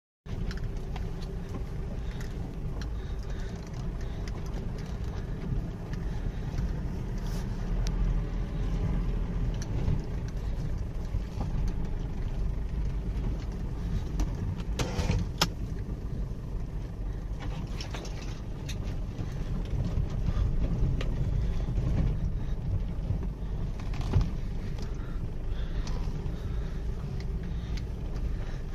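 Ford Endeavour SUV crawling over a rough, rutted dirt track, heard inside the cabin: a steady low engine and road rumble with a few sharp knocks as the vehicle jolts over the bumps.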